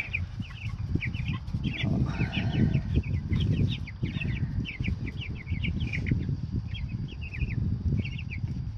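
A flock of three-week-old meat chicks peeping, many short high cheeps overlapping without pause, over a low rumble.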